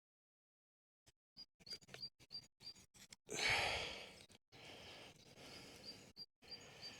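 A man lets out a heavy sigh about three seconds in, against faint clicks and rustles from handling the wooden bow drill and its string.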